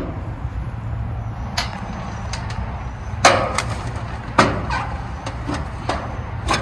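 A hand tool knocking and clinking against the sheet-metal panel of an outdoor A/C condenser as the panel bolts are worked loose: several sharp metallic knocks, two of them ringing briefly, over a steady low hum.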